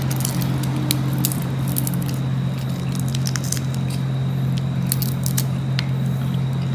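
Cooked shrimp being peeled by hand: scattered small cracks of shell and wet squishes, over a steady low hum.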